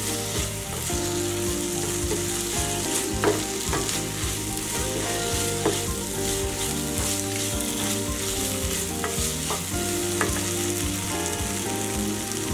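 Chicken pieces sizzling as they are sautéed and stirred in a frying pan: a steady frying hiss with a few brief stirring strokes.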